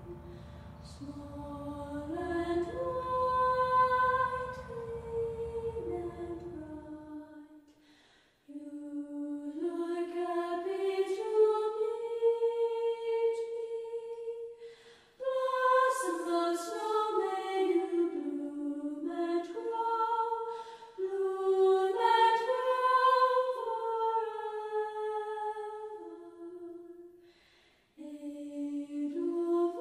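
Background music: a slow, wordless vocal melody in phrases a few seconds long, with brief pauses between them. A low hum underneath stops about seven seconds in.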